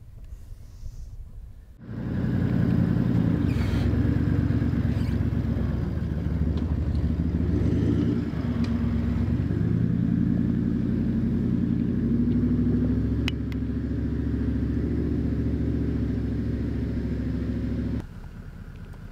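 Toyota LandCruiser 79 engine working under load off-road, its revs rising and falling. It comes in abruptly about two seconds in and drops away abruptly near the end.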